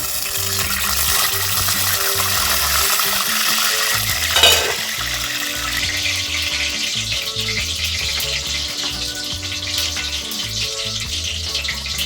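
Chicken pieces frying in hot oil in a black pot: a steady sizzle, stronger for the first four seconds or so, with one brief louder burst about four and a half seconds in. Background music with a steady low beat runs underneath.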